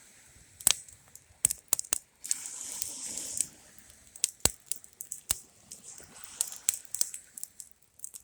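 Burning Sunbeam plastic box fan crackling and popping in the flames, with sharp snaps scattered throughout and a stretch of hissing about two seconds in.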